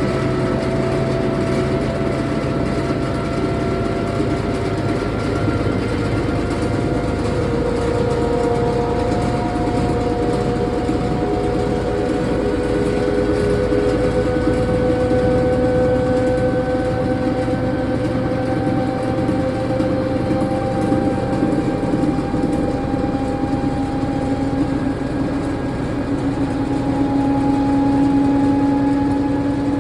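A 160 lb Unimac industrial washer-extractor spins up toward its 710 rpm extract speed: a loud, steady rumble under several whining tones that rise slowly in pitch. The noise comes from main bearings destroyed within a year, which the owner blames on under-loading.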